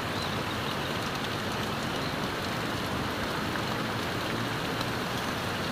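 Heavy rain falling steadily, an even, unbroken wash of sound.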